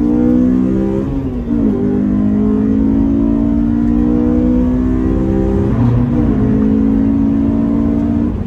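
Honda S2000's inline-four engine and stock exhaust, fitted with an aftermarket intake and test pipe, heard loud from inside the closed cabin under hard acceleration. The pitch climbs steadily, drops sharply at a gear change a little over a second in and another about six seconds in, then climbs again.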